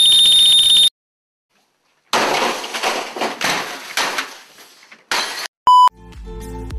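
Meme sound effects from a video edit: first a loud effect with a steady high whine lasting under a second, over a laser-eyes overlay. After a second of silence come about three seconds of crashing and smashing, as of things breaking. Near the end a short beep sounds and background music starts.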